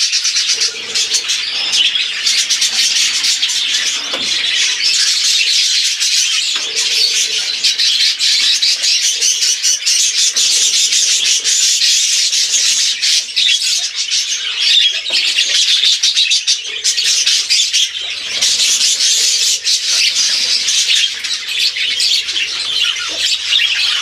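A flock of budgerigars chattering loudly and without a break, many birds calling at once in a dense wash of short chirps and warbles.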